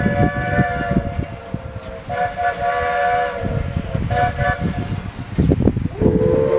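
Steam locomotive whistle sounding three blasts, the third short, then a lower-pitched blast that begins near the end, over a low rumble. The locomotive is an SAR T Class 4-6-0.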